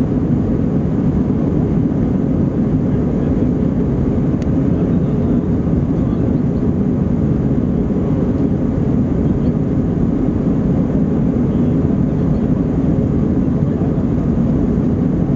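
Airbus A321-231 with IAE V2500 turbofan engines, heard from inside the passenger cabin as a loud, steady, deep rumble of engine and airflow noise.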